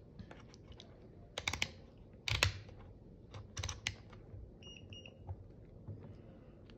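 Fluke 17B+ digital multimeter being switched to diode-test mode: a few sharp clicks from the rotary dial and handling, then two short high beeps from the meter a little after the middle.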